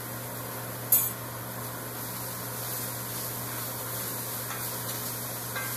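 Bell peppers sizzling steadily in oil and butter in an enamelled cast-iron pan. A sharp clink comes about a second in, and a lighter knock near the end.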